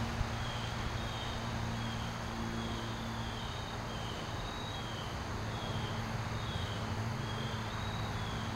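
Lawn mower engine running steadily at a constant drone, its pitch wandering slightly, with a short high chirp repeating about one and a half times a second over it.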